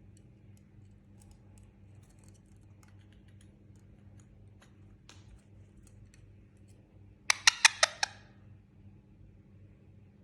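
Indian ringneck parakeet giving a quick run of about five loud, shrill calls about seven seconds in. Faint scattered clicks come before and after the calls.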